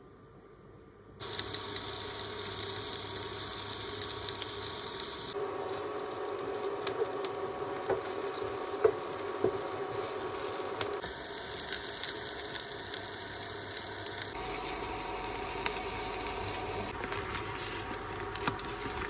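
Food sizzling and frying in a pan, with small clicks of stirring, over a run of short cuts. The sizzle is loudest for the first few seconds.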